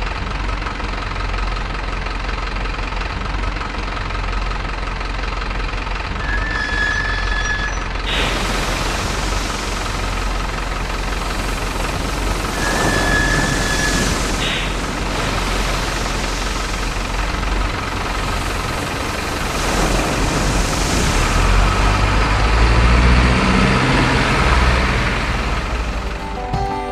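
Diesel truck engine sound running steadily, getting louder and rising in revs near the end.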